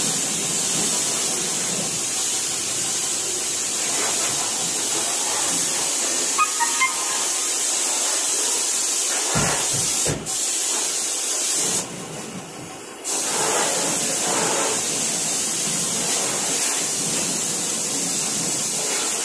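Compressed-air spray gun hissing steadily as it sprays chassis paint onto a car's underside. The spray cuts out twice: briefly about ten seconds in, then for about a second shortly after, before it resumes.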